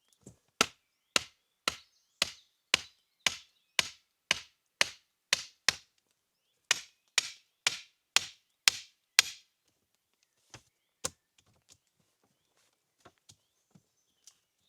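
Wood being chopped with sharp, evenly spaced blows, about two a second: a run of eleven strokes, a short pause, seven more, then a few lighter scattered knocks near the end.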